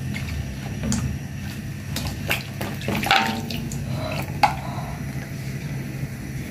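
Washed pieces of mulung palm heart (umbut) dropped by hand into a wok of liquid, plopping and splashing one after another. Near the middle the water left in the bowl is poured into the wok, over a steady low hum.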